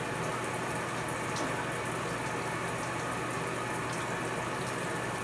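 Shower water running steadily.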